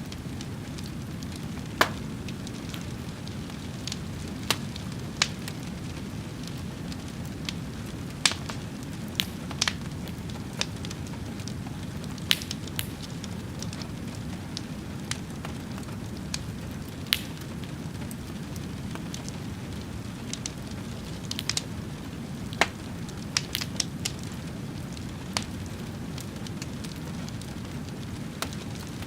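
Fire crackling: a steady low rushing bed with irregular sharp pops and snaps scattered throughout, a few of them louder than the rest.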